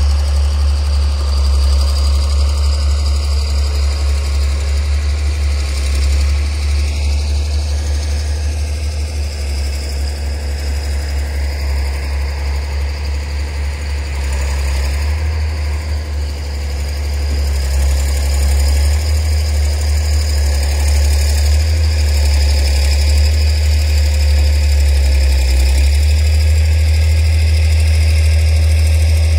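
A vehicle engine idling steadily, heard from inside the vehicle as a strong low hum with vibration. It grows a little louder in the second half.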